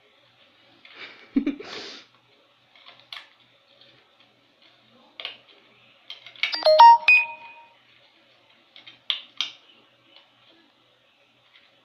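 Plastic DVD cases and their cardboard sleeves being handled: scattered clicks and rustling, with the loudest moment about seven seconds in, a quick clatter of clicks with a brief ringing.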